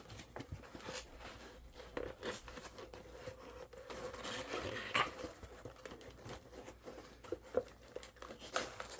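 Cardboard box and packing being handled: scattered light taps, scrapes and rustling as the box is worked at and opened.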